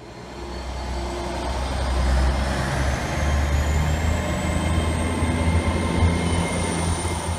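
Turbocharged diesel engine running with a low rumble and a high whistle that rises slowly in pitch, fading in over the first couple of seconds.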